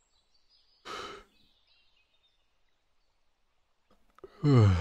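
A man's voice: a short breathy exhale about a second in, then near the end a long voiced sigh falling in pitch, a sign of weariness.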